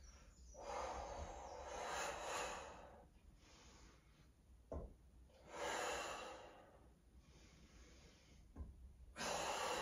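A person breathing hard during strenuous exercise: three long, heavy breaths a few seconds apart, with two faint short knocks between them.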